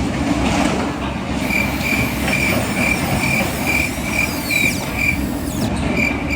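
Reversing warning beeper of a radio-controlled model construction vehicle, beeping a high, even tone about twice a second. It stops about five seconds in and starts again near the end, over a dense, steady rumble of model machinery.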